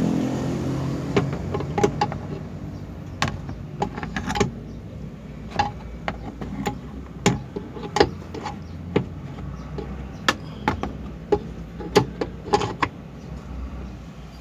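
Irregular sharp clicks and knocks, one or two a second, of a brake master cylinder being worked onto the brake booster in a cramped space.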